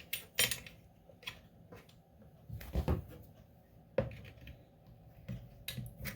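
Scattered clicks and knocks of parts being clipped back into place on a top-loading washing machine's drain pump and hoses, with a heavier, duller knock about three seconds in.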